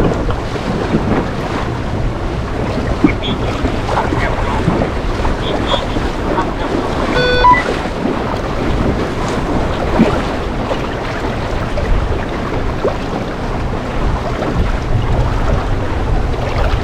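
Water rushing and splashing along the hull of a small sailing dinghy under way, with steady wind buffeting the microphone. A short pitched beep sounds once about halfway through.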